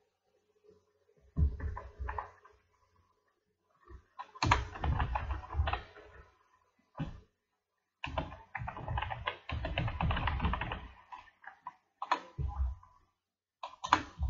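Computer keyboard being typed on, in quick bursts of keystrokes with short pauses between them.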